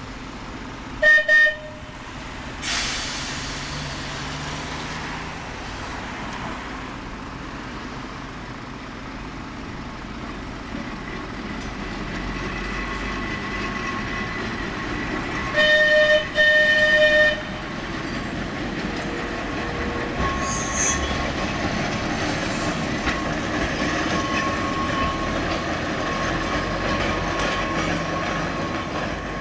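Manx Electric Railway electric tram with its trailer running along the line. Its horn gives two short toots about a second in and two longer toots about sixteen seconds in, over the steady rumble of wheels on the rails, which grows louder in the second half.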